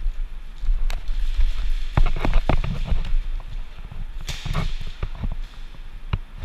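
Quick footsteps and gear knocking of an airsoft player on the move, with a few sharp cracks, the sharpest about four seconds in.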